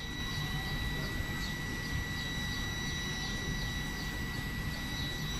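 Intercity passenger train at the platform: a steady low rumble under a constant high-pitched whine, with faint high chirps repeating about twice a second.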